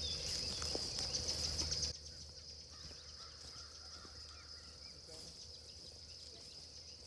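Crickets and other insects trilling steadily. A low rumble under them during the first two seconds cuts off suddenly.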